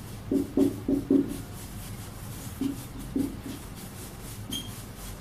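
Marker pen writing on a whiteboard: short stroke sounds, four quick ones in a row about a second in and a few more around three seconds, over a low steady hum.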